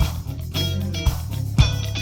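Live rock cover band playing an instrumental passage: electric guitar chords over bass and drums, with kick-drum hits.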